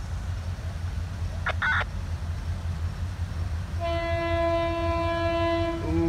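Locomotive air horn sounding one held blast of about two seconds, starting about four seconds in, its pitch sagging as it cuts off. A brief high chirp is heard about a second and a half in, over a steady low rumble.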